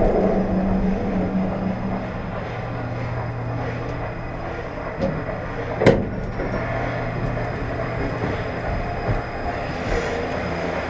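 Steady rumble and hum of a moving vehicle, with the hum fading over the first few seconds and a single sharp clack about six seconds in.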